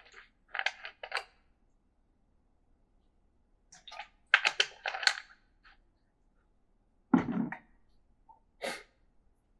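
Keys on an E-Element mechanical gaming keyboard being typed in short, uneven bursts of clacks with pauses between them. About seven seconds in comes a heavier, deeper keystroke thump.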